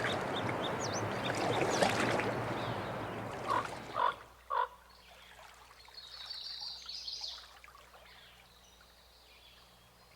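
Running water, a steady rush that fades out about four seconds in, with three short animal calls as it ends, then faint high chirping.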